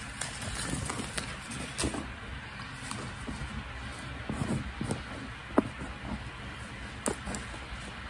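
Light handling noise of a disposable face mask and a beaded mask lanyard: soft rustling of the mask and small scattered clicks of the beads and clips, with one sharper click a little past halfway.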